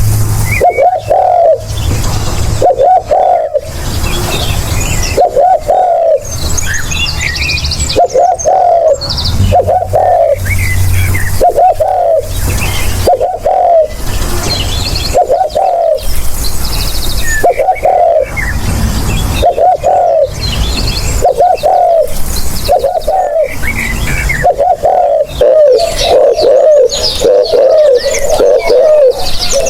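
Spotted dove cooing over and over in short phrases, the coos coming closer together near the end, with higher chirps of other small birds in between. It is a lure call recording meant to draw in doves.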